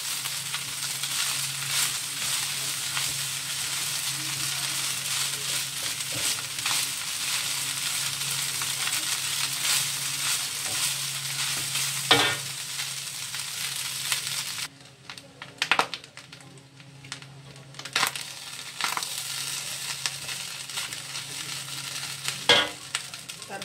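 Fried rice sizzling in a wok while a wooden spatula stirs and scrapes it, with a sharp knock of the spatula on the wok about halfway through. A little after halfway the sizzle drops away abruptly, leaving a few scattered scrapes and knocks of the spatula.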